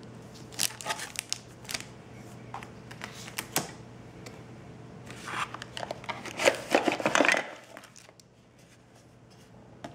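Unboxing handling noise: a few light taps and clicks, then, about five seconds in, a couple of seconds of rustling and crinkling as the cardboard insert, paper manuals and plastic-bagged accessories come out of the phone box and drop onto a wooden table.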